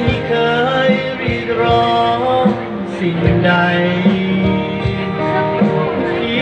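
Live acoustic duo: a man singing over a strummed acoustic guitar, with a steady percussion beat struck about every two-thirds of a second.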